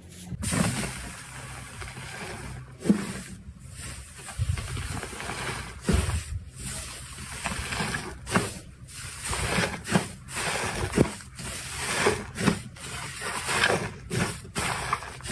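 Slime being worked by hand: a run of irregular squishes, with sharper pops now and then.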